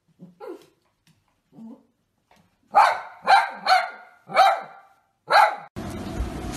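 Small curly-coated dog barking at a black bear on the other side of a glass door: a few soft woofs, then five loud sharp barks in quick succession. Near the end the barking stops and a steady hiss takes over.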